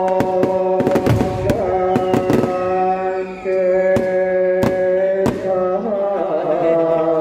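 Fireworks banging and cracking over music with long held notes. The bangs come every half second or so at first and thin out after about five seconds, while the music carries on.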